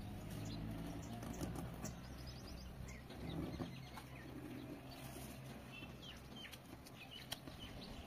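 Sheet of origami paper rustling and being creased by hand, with short crinkly clicks, over a low steady hum. Birds chirp faintly in the background.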